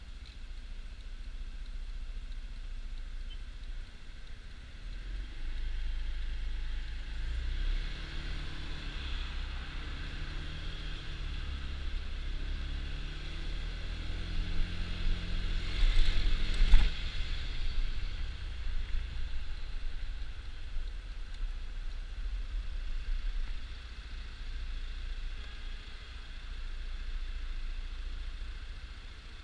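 Scooter engine and surrounding traffic heard from the scooter. The engine note climbs and falls as it pulls away and slows through the middle stretch. A sharp knock comes at the loudest point, just past halfway.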